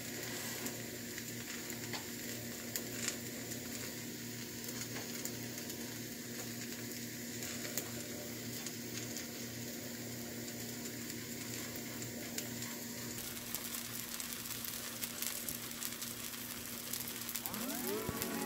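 Ragi dosa batter with onion frying on a black iron tawa: a steady soft sizzle with scattered small crackles as the thick dosa cooks through on its first side, before flipping.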